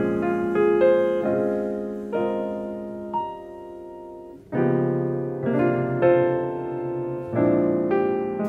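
Solo piano music: a gentle melody of struck notes that ring and fade. It thins to one decaying chord about three seconds in, then picks up again with a fuller chord a second or so later.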